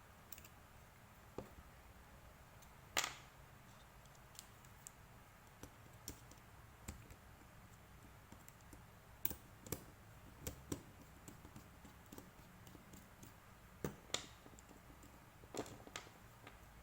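Irregular small clicks and taps, with the loudest knock about three seconds in and a cluster of clicks in the second half, like small parts and tools being handled on a workbench.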